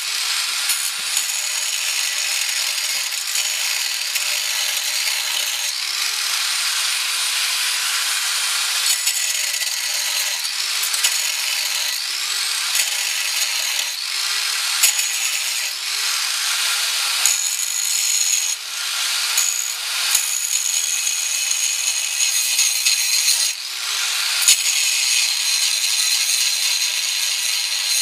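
Corded electric angle grinder cutting into the steel seat pan of a riding mower: a harsh grinding hiss over the motor's whine. The whine sags and recovers again and again as the disc bites and is eased off, with brief drops around two-thirds of the way through.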